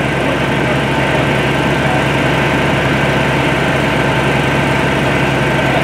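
Engine of the hydraulic rescue-tool power unit running steadily, feeding the spreader through its hoses. It makes a constant, unchanging engine noise.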